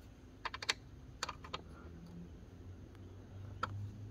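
Light metal clicks and taps of an L-shaped Allen key being turned in a roof crossbar's mounting screw: a quick run of clicks about half a second in, then a few single clicks, over a low background hum.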